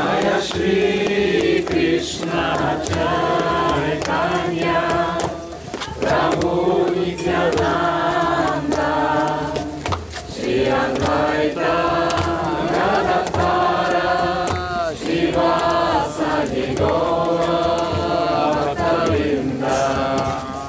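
A group of voices chanting a devotional mantra together in sung phrases, with regular percussion strikes keeping time.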